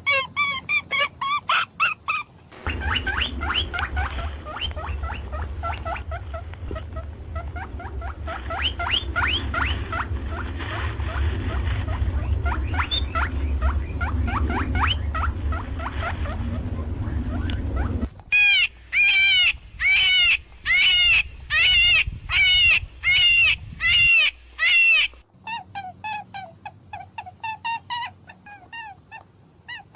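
A run of animal calls spliced from several different recordings: fast pitched calls, then rapid chirping over a low hum, then about ten loud calls in a steady series, then quicker, fainter calls near the end.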